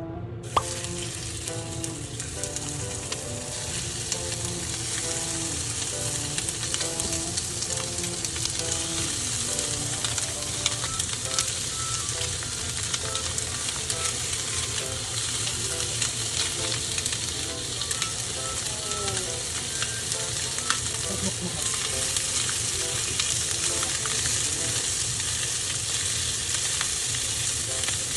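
Food sizzling in oil in a frying pan, starting suddenly and then running steadily, with scattered clicks of a utensil stirring or turning the food.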